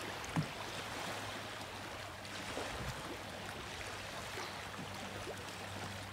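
Gentle water lapping and trickling at the water's edge, with a faint steady low hum underneath and one soft knock about half a second in.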